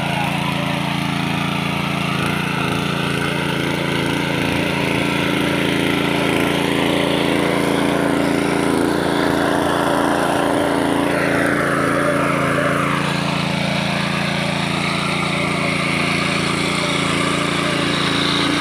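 Honda GX200 single-cylinder four-stroke engine running steadily on a power weeder as its rotary tines churn through dry soil.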